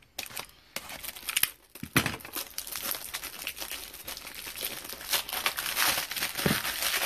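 Plastic packaging being handled: a few clicks and rustles, then steady crinkling from about two seconds in.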